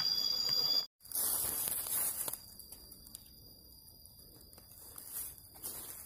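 A steady, high insect drone that cuts off abruptly just under a second in. Then comes rustling and footsteps through undergrowth and leaf litter, loudest briefly at first and then softer, with a fainter insect tone underneath.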